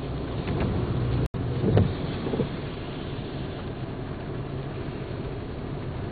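Steady low rumble of motor vehicle engines, with wind noise on the microphone. The sound swells briefly about two seconds in and cuts out for an instant a little before that.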